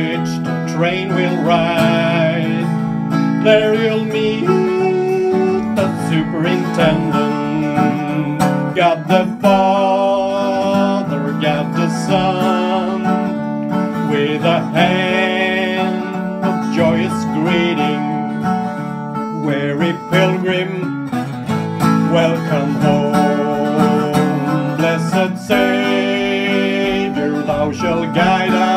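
Country-style acoustic guitar music: strummed chords under a wavering lead melody, an instrumental break between sung verses.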